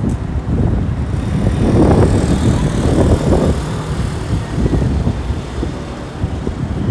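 City street traffic, vehicles passing on the road with a swell as one goes by about two to three seconds in.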